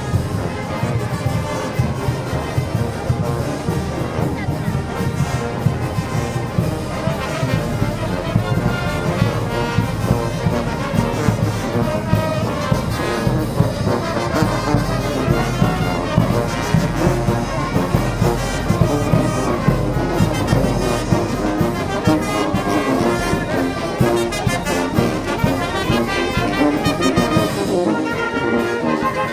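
A marching brass band of trumpets, saxophones and sousaphones playing a tune.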